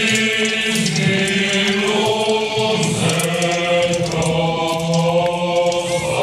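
A choir singing slow chords, each held for a second or more, as background music.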